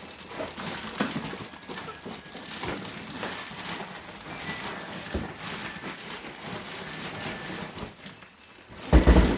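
Polystyrene packing scraping, squeaking and rustling as a Rotimatic roti-making machine is lifted out of it, with a few light knocks and a heavy thump near the end.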